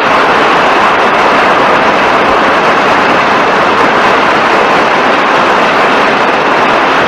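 Steady, dense applause from a large audience, holding at an even level.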